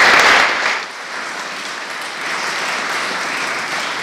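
Audience applauding, loudest for about the first second, then settling into steadier, somewhat quieter clapping.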